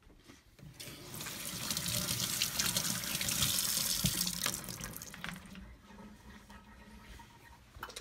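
Kitchen faucet running into a stainless steel sink, the stream splashing on the sink bottom; it builds up about a second in and eases after about five seconds. A single sharp knock sounds about four seconds in.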